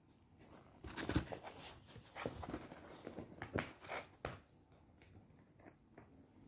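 Cardboard box scraping, rustling and knocking as a kitten paws at it and squeezes into it: a flurry of irregular scuffs over the first few seconds, then quieter.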